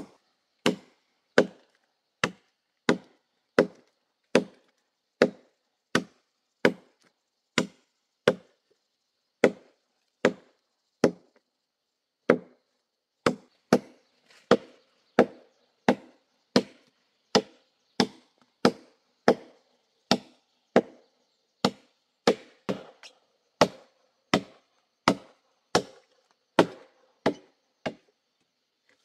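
Machete chopping into a fallen log for firewood: a steady run of sharp woody strokes, about four every three seconds, with one brief pause about a third of the way in. A faint steady high hum sits behind the strokes in the second half.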